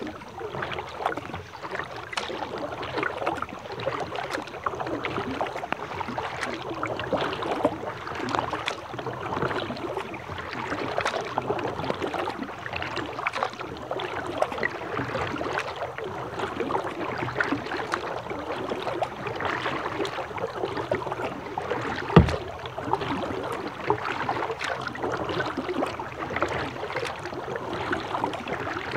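Rain pattering on a plastic kayak's deck and on the river surface, a dense, steady crackle of drops. A single sharp thump about three-quarters of the way through.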